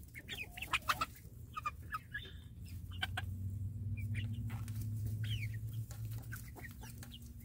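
Young chickens clucking and chirping in short, scattered calls while pecking at canned tuna held out by hand. A low steady hum rises underneath through the middle seconds.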